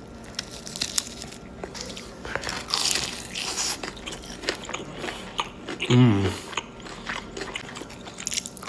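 Close-miked eating: crunchy bites and chewing of fried chicken tenders and seasoned fries, with a short "mm" hum about six seconds in.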